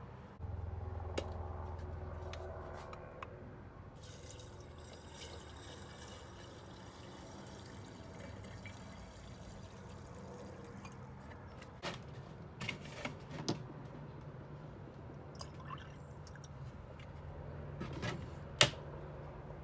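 Vinegar poured from a plastic gallon jug into a glass mason jar of crushed eggshells: a steady splashing pour lasting several seconds, followed by a few knocks and clinks of the jug and jar, the sharpest near the end.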